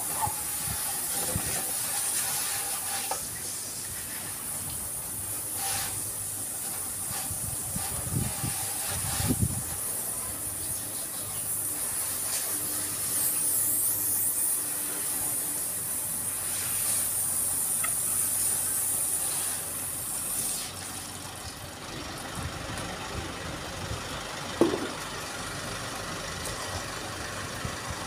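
Garden hose spraying water over a motorcycle: a steady hiss of the spray with water spattering on the bodywork. The spray stops about three-quarters of the way through, leaving a few light knocks.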